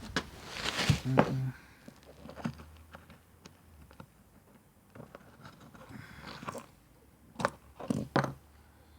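Scattered knocks, scrapes and footsteps of someone moving about and handling things in a small room, with a louder rustling burst about a second in and a few sharp knocks near the end. A faint steady low hum runs underneath from about two seconds in.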